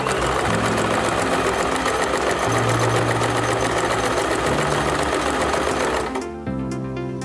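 Electric sewing machine running at speed, its needle stitching through thin fabric in a fast, even patter, then stopping about six seconds in.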